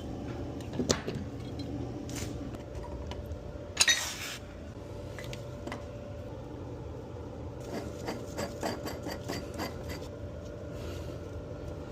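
Hand tools clanking and scraping on metal plumbing during a water valve replacement, over a steady hum. There is one louder clank about four seconds in and a quick run of ticks later on.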